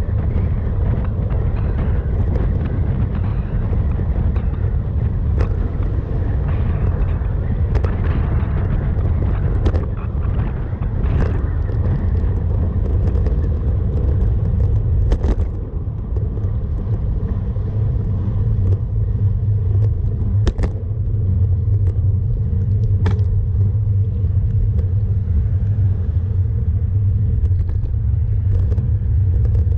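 Wind rumbling over the microphone of a bike-mounted GoPro on a moving road bike, mixed with tyre hiss on asphalt. The rumble holds at an even level throughout, with several sharp clicks scattered through it.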